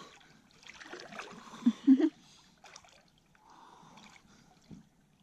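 Swimming strokes splashing and swishing in open lake water. Two short, sharp gasps come a little under two seconds in, from the shock of very cold water, and the water sounds grow quieter afterwards.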